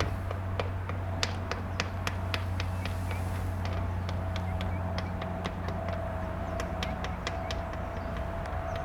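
Saab 340 twin-turboprop freighter heard in flight as a steady low propeller drone with a steady higher tone above it. Irregular sharp clicks, a few per second, run over it.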